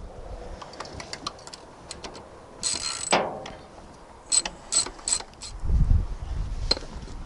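Socket ratchet on a long extension bar clicking in short runs while undoing the clutch master cylinder's mounting nut, with a few dull knocks near the end.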